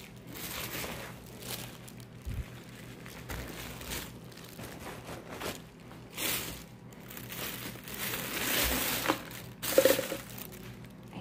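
Irregular rustling and crinkling in several patches, with a sharper, louder rustle about ten seconds in.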